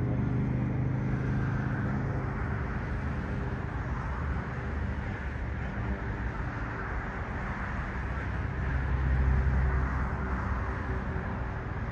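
Steady outdoor rumble and hiss, growing louder about nine seconds in.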